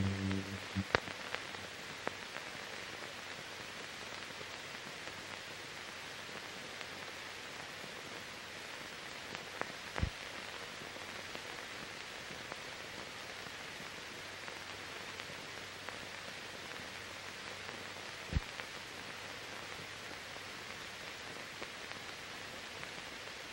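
Steady hiss of a blank soundtrack, broken by a few single sharp clicks.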